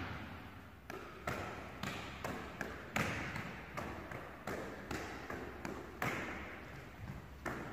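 A ball being passed quickly back and forth between two players' hands, each contact a sharp slap, about two a second. The slaps echo in the large sports hall.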